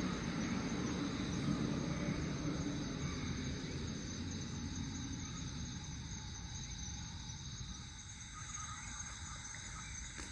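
A chorus of singing insects such as crickets, a steady high trilling. Under it, a low rumble of road traffic fades away over the first several seconds.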